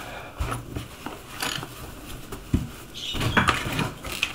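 Irregular short knocks, taps and scrapes of tools and materials being handled during shoe-repair work, clustering near the end.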